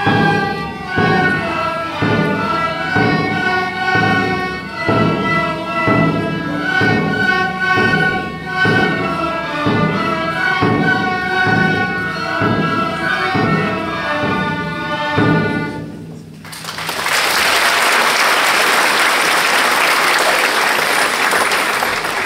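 A children's ensemble of tin whistles and fiddles plays a march tune over a steady drum beat, about two beats a second. The tune ends about 16 seconds in, and the audience then applauds loudly.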